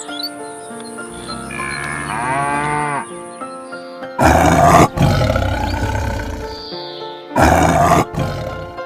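A cow moos once about a second in. Then lion roars follow: a long one at about four seconds and a shorter one near the end, the loudest sounds here. Background music plays under them.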